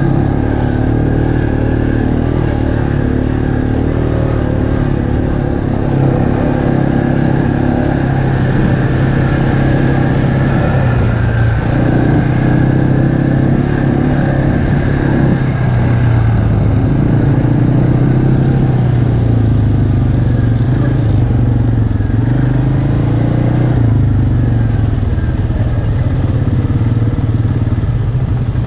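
ATV engine running close to the microphone while riding a dirt trail, its pitch rising and falling as the throttle is opened and eased off.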